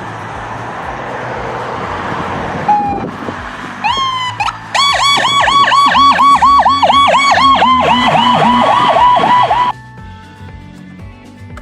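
Electronic emergency-vehicle siren sounds: after a few seconds of even rushing noise, a loud, fast-repeating yelp siren starts about halfway through, a second siren pattern joins it, and both cut off suddenly near the end, leaving a quieter steady tone.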